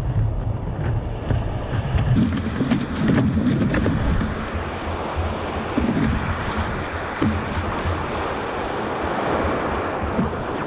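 Ocean surf with wind buffeting the microphone: a dense, steady rushing noise. About two seconds in the sound changes abruptly; before that it is duller, with a low rumble.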